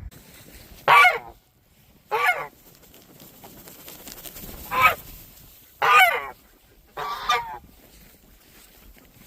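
A domestic goose honking: about five short, loud honks spaced out over several seconds, each under half a second long.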